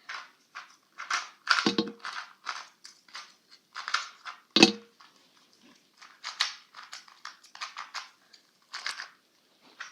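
GAN 249 V2 M magnetic 2x2 speedcube being turned by hand: irregular plastic clicks and clacks as the layers turn, with two louder knocks about 1.5 and 4.5 seconds in.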